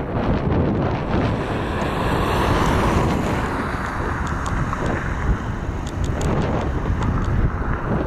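Boeing 777-300ER's two GE90-115B turbofans at takeoff power during the takeoff roll. The roar is deep and steady, with scattered crackles. Wind buffets the microphone.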